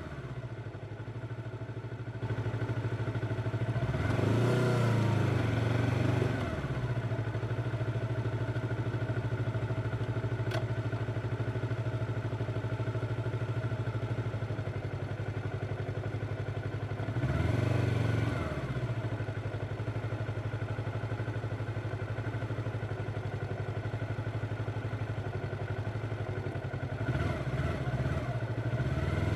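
Yamaha R25's parallel-twin engine running steadily while riding, its revs rising and falling back three times: a few seconds in, about halfway, and near the end.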